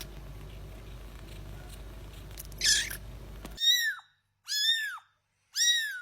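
High-pitched cat meows: one short wavering mew about two and a half seconds in, then from about three and a half seconds in, three identical meows about a second apart, each a brief call that falls in pitch, against dead silence.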